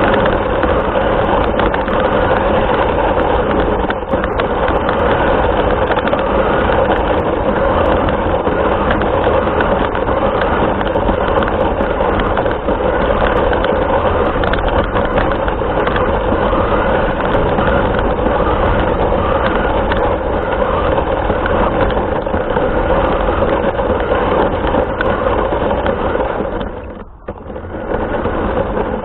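A radio-controlled car running, picked up by its onboard camera mic: a steady motor and gear whine over the rumble of the wheels on the ground. It drops away sharply near the end, then partly comes back.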